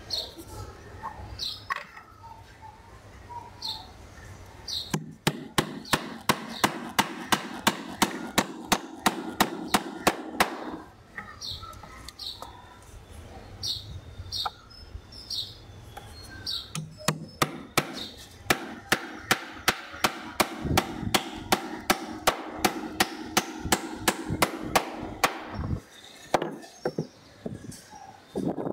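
Restored steel hammer with a new wooden handle striking a nail into a wooden bench, quick even blows about three a second in two long runs with a pause between. Birds chirp in the pause and at the start.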